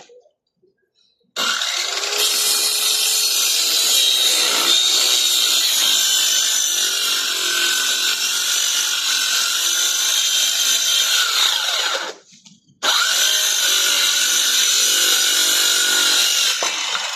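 A handheld power tool running at speed for about ten seconds, its pitch falling as it winds down. It starts up again moments later and runs for a few more seconds before fading.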